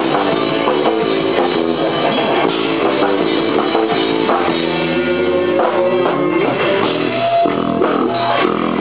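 Live rock band: an electric guitar playing over a drum kit, with the guitar bending notes up and down a little past the middle.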